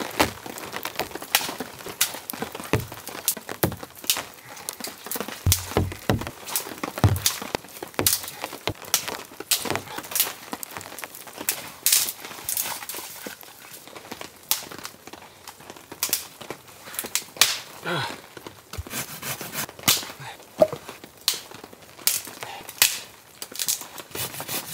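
Damp dead branches and twigs being snapped and broken by hand: an irregular string of sharp cracks and snaps.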